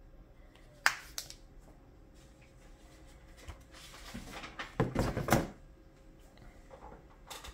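Bagged and boarded comic books being handled on a table: two sharp taps about a second in, a stretch of plastic-sleeve rustling and soft bumps around the middle, and another tap near the end.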